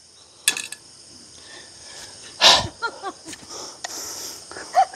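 A man's loud breathy sigh of frustration about two and a half seconds in, with short clinks as a small frying pan is set back onto a gas camp stove, over a steady high chirring of night insects.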